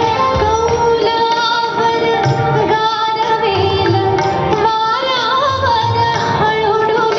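A woman singing an ornamented melody over instrumental accompaniment, with a low drum beating underneath.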